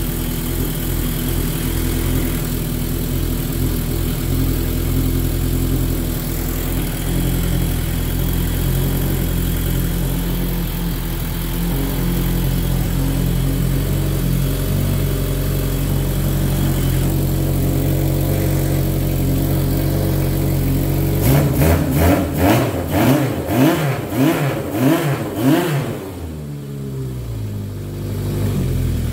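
1978 Yamaha XS1100E's air-cooled inline four-cylinder engine idling steadily just after a cold start. About twenty seconds in, a quick run of throttle blips revs it up and down for about four seconds before it settles back to idle.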